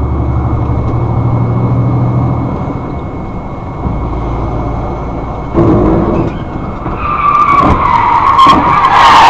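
A vehicle's engine running low and steady, a sharp knock a little past halfway, then tyres squealing in a hard skid over the last two seconds or so.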